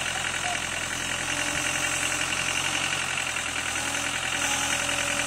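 Land Rover Discovery 300Tdi's 2.5-litre four-cylinder turbodiesel idling steadily.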